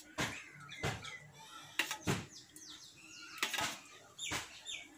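A hand scooping curd out of a steel pot and slopping it onto rice on a banana leaf: a few sharp taps and knocks against the pot and the leaf, with wet splats in between.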